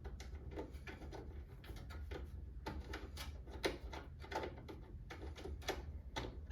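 Irregular small clicks, taps and knocks of hands unscrewing and handling the glass side panel of a PC case, over a low steady hum.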